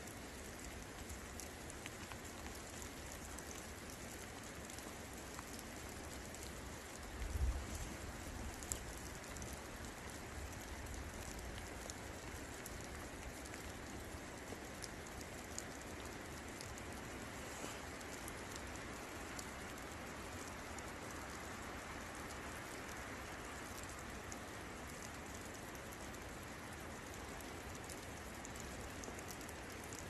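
Steady rain falling, a dense even hiss with scattered drips ticking through it. A brief low thump comes about seven seconds in.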